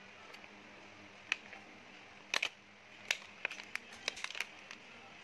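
Light crinkles and sharp little clicks of paper cupcake liners and plastic packaging handled by hand, scattered irregularly and busiest in the second half.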